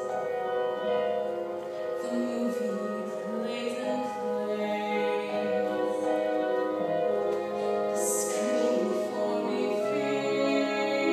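Singing over musical accompaniment, in long held notes, in the style of a musical-theatre number.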